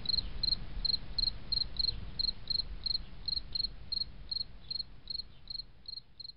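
Cricket chirping in a steady rhythm, about three chirps a second, over a low rumble.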